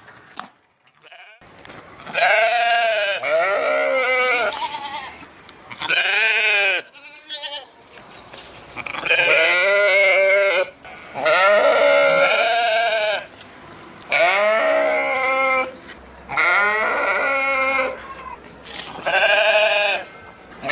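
Sheep bleating repeatedly, about seven loud, wavering calls of one to two seconds each, coming every two to three seconds.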